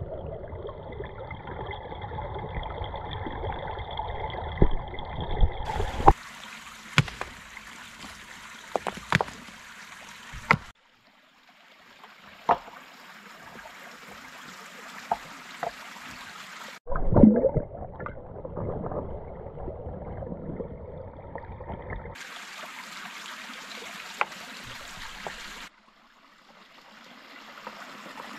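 Shallow stream running over stones, with scattered sharp knocks of rock set on rock as stones are stacked at the water's edge and one louder low thump about two-thirds of the way in. For the first few seconds the water sounds muffled and dull, heard from underwater.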